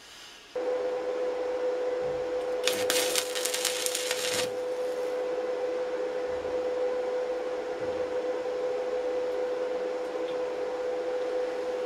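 Stick-welding arc from an inverter welder with a 2 mm electrode crackling for about two seconds, around three seconds in, as a first tack weld is attempted. Throughout, a steady hum with hiss.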